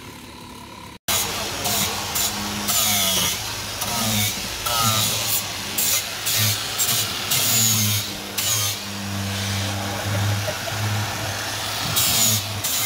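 A small power tool's motor running in short bursts, starting and stopping repeatedly, with clicks of work and people talking in the background.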